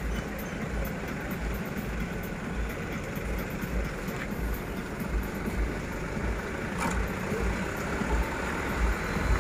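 Light truck engine running as the truck rolls slowly past at low speed, with irregular low thumps underneath.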